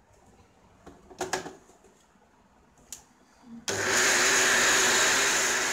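Electric mixer-grinder grinding fried onions and tomatoes into a paste. A few knocks and clicks as the jar is handled, then the motor starts abruptly about two-thirds of the way in and runs loudly and steadily.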